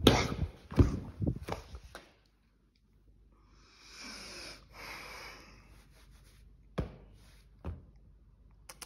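A young man crying without words. The first two seconds hold knocks and fabric rubbing as the phone moves against his hoodie. After a short silence come two long breaths, about four and five seconds in, and a couple of faint clicks near the end.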